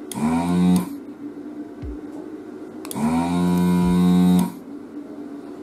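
Desoldering station's vacuum pump running in two bursts: a short one at the start and a longer one of about a second and a half about three seconds in. Each rises quickly in pitch as the motor spins up, holds steady with a hiss of suction, and cuts off sharply.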